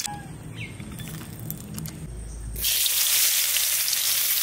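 Frying in mustard oil in a wok: a soft sizzle while dried red chillies are stirred, then a loud, steady sizzle starting about two and a half seconds in as sliced onions fry in the hot oil.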